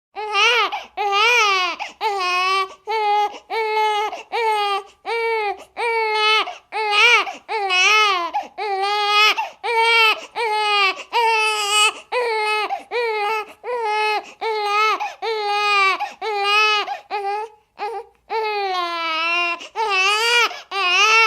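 Infant crying hard, a rapid string of short pitched wails, about two a second with quick breaths between them, and a few longer drawn-out wails near the end.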